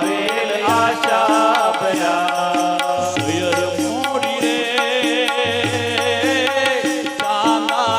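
Indian devotional music: a wavering singing voice over a steady drum beat with repeating low bass notes.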